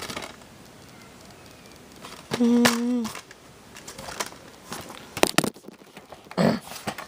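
A short hummed voice sound about two and a half seconds in, among scattered small clicks and a brief rustle near the end.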